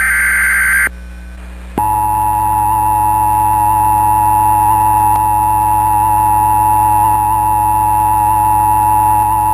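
The last burst of an Emergency Alert System SAME header, a harsh screech of digital data tones, ends about a second in. After a short pause, the EAS attention signal starts about two seconds in and holds as a loud, steady alert tone.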